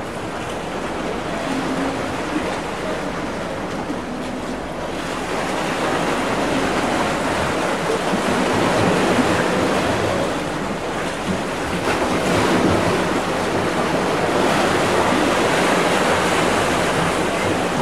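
Steady rush of sea waves and wind, growing louder about six seconds in.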